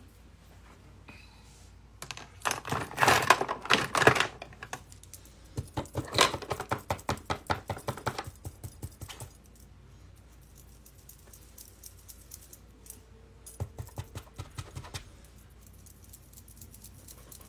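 Hard little objects clicking and tapping close by, in three spells. First comes a dense clatter of clicks, then a run of quick, even taps at about six a second, and near the end a shorter run of taps.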